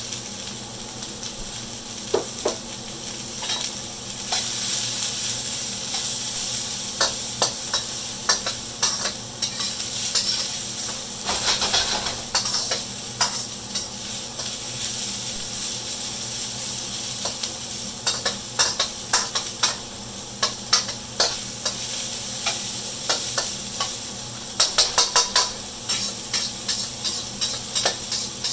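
Sliced carrot and onion sizzling in smoking-hot oil in a wok as they are stir-fried, a steady high hiss with a utensil clacking and scraping against the wok. There is a quick flurry of clacks near the end.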